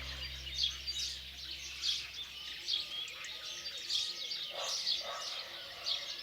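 Small birds chirping, short high chirps about one or two a second, while a background music track fades out in the first second.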